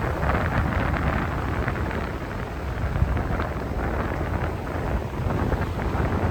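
Strong wind buffeting the phone's microphone: a heavy, gusting rumble over the wash of heavy sea waves breaking on the beach.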